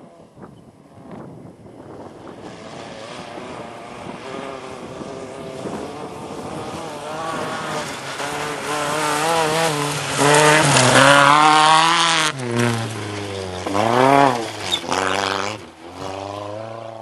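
Rally car engine approaching at full throttle, growing steadily louder, then passing close about eleven seconds in with the revs rising and falling sharply through gear changes, and starting to pull away near the end.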